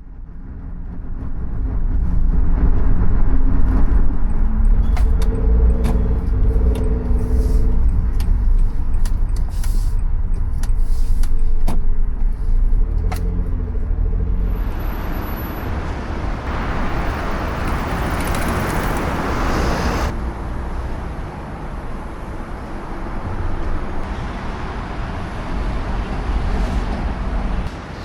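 Car driving, with a steady low engine and road rumble and a shifting engine tone in the first half. A loud hiss joins it about halfway through, lasts some five seconds, then cuts off.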